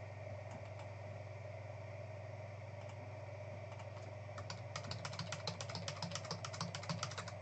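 Typing on a computer keyboard: a quick run of key clicks starting about four seconds in, over a steady low hum.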